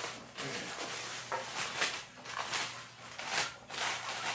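Crinkling and rustling of a small sealed plastic bag being pulled open and handled, in a run of short bursts.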